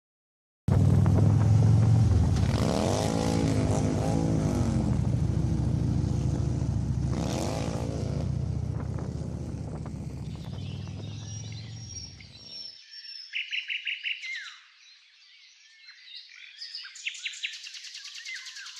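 Motorcycle engine running with a steady low drone that slowly fades and cuts off about twelve seconds in, followed by birds chirping.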